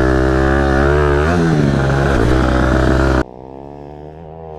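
Dirt bike engine running loudly under throttle, its pitch rising and falling as the rider works the throttle. About three seconds in the sound drops suddenly to a quieter engine running on.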